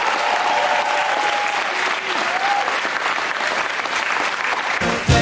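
A roomful of people applauding, with a few voices over the clapping. Music comes in just before the end.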